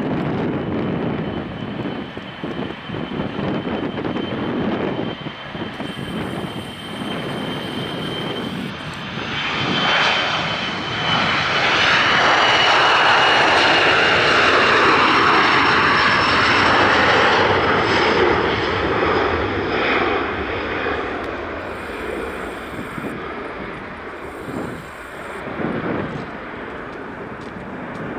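Boeing 737-500's CFM56-3 turbofan engines at takeoff power: a steady high whine over a rushing jet noise. It grows loudest as the jet passes, about 12 to 18 seconds in, then fades as the aircraft climbs away.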